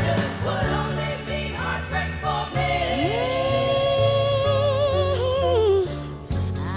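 Background music with a singing voice over a steady bass line. About three seconds in, a sung note slides up and is held with a wavering pitch, then falls away near the end.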